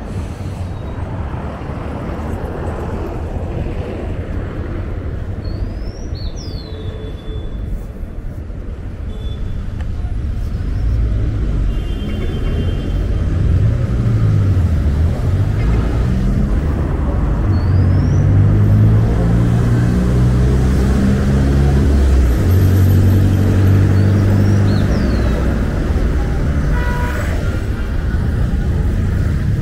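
Busy city-street traffic: a steady rumble of passing vehicles, with heavier engines pulling by and getting louder from about ten seconds in.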